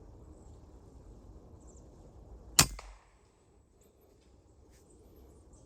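A single sharp gunshot from a hunting gun about two and a half seconds in, over a faint outdoor background.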